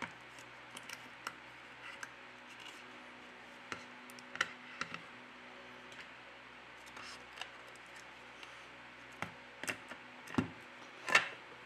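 Faint scattered clicks and taps of a thin opening pick working along the back-cover seam of a Lenovo Phab 2 Pro as the cover is pried apart, followed by a few louder knocks of the phone handled and set down on the table near the end.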